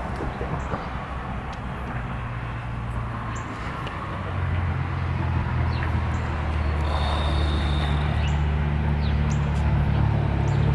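Small birds chirping over a steady low motor hum, which grows louder about four seconds in.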